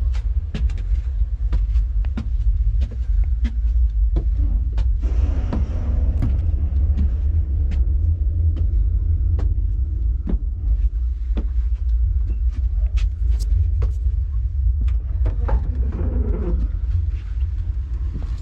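Wind buffeting the microphone at the top of a tower: a loud, steady low rumble, with scattered sharp clicks.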